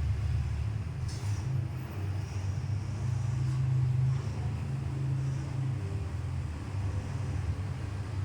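Steady low rumble, with a brief faint high crackle about a second in.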